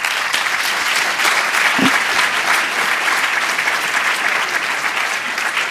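Audience applauding, many hands clapping at once at a steady, even intensity.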